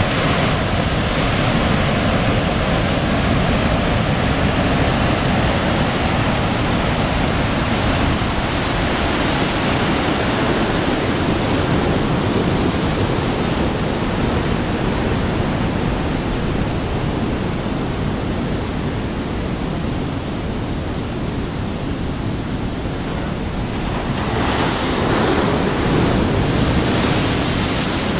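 Heavy ocean surf from hurricane swell breaking, a steady rushing wash of waves that swells louder for a few seconds near the end, with wind buffeting the microphone.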